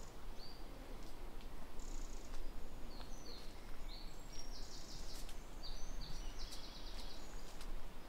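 Small woodland songbirds singing: short, high chirps and fast trilled phrases from more than one bird, busiest in the second half. Under them runs a steady low rumble.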